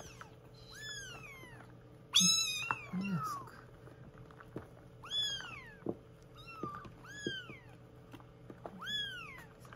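Young kittens mewing while being shampooed: about seven high, thin mews that rise and fall in pitch, the loudest about two seconds in.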